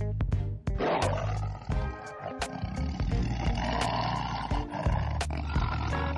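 Background music with a steady beat, over which a tiger growls from about a second in until about five seconds, swelling toward the middle.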